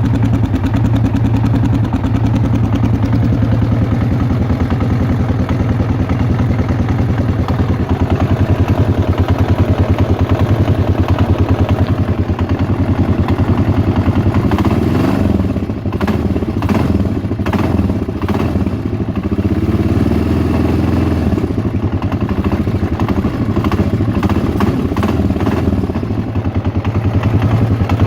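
Yamaha XT 600 E's single-cylinder four-stroke engine running at idle, with the throttle blipped a few times in the second half, bringing sharp clicks with the rise and fall in pitch. The engine makes a strange noise whose source the owner cannot place.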